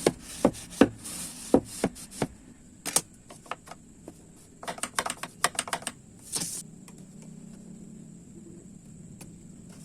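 Irregular sharp taps and clicks of hand tools being handled against wood, in two quick clusters, with a short hiss about six and a half seconds in. After that only a faint steady hum remains.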